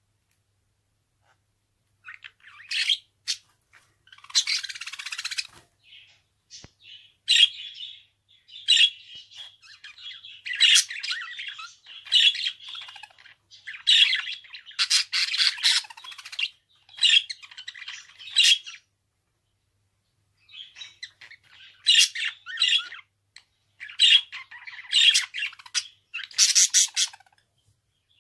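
Budgerigar chattering in rapid bursts of chirps, warbles and sharp squawks. It starts about two seconds in and pauses briefly a little past the middle.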